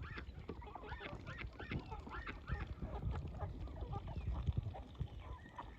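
Geese honking, a quick run of short calls, then softer scattered calls in the second half.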